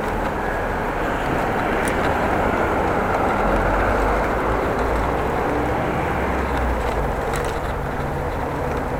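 Steady road and wind noise from riding a bicycle, swelling a little in the middle, with a couple of sharp clicks.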